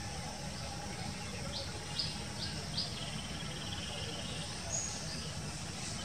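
Small birds calling among trees over a steady hiss of insects. There is a run of four short chirps from about a second and a half in, then a buzzy trill, with a low steady rumble underneath.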